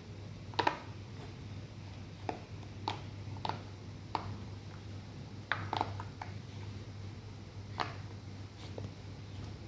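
Silicone pop-it fidget toys being pressed by children's fingers: short, sharp pops at irregular intervals, roughly one a second.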